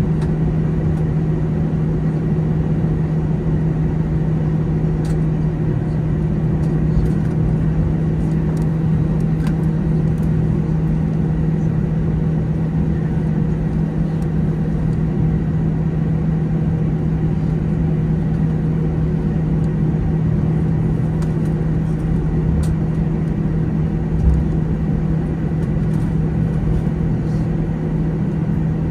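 Steady drone inside the cabin of an Airbus A321 sitting on the ground with its engines idling and cabin air running, with a strong constant low hum under it.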